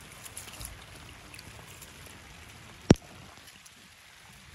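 Rice being washed by hand in a steel basin of water: soft wet swishing and squeezing of the grains. A single sharp click about three seconds in.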